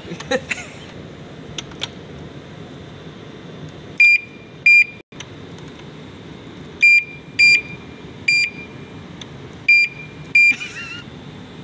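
Black alarm padlock's beeper sounding while its key is worked in the lock: seven short, loud, high-pitched beeps in pairs and singles, starting about four seconds in. A few light metallic clicks of the key and shackle come near the start.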